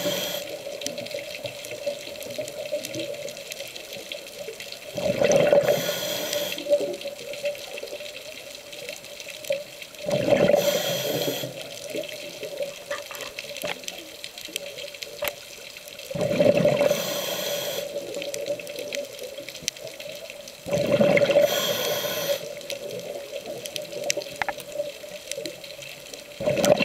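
Scuba diver's regulator breathing underwater: bursts of exhaled bubbles about every five and a half seconds, five in all, over a steady hum.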